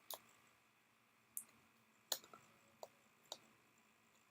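Faint, scattered clicks of a small precision screwdriver working the tiny screws inside an opened smartphone, about five taps spread over four seconds.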